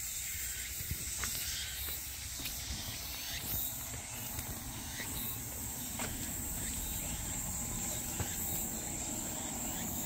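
A steady, high-pitched insect chorus over a low rumble, with a few faint clicks.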